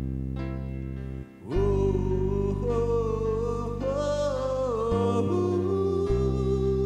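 Background music: a slow tune over a steady low bass, with a held melody line that comes in about a second and a half in and wavers up and down in pitch.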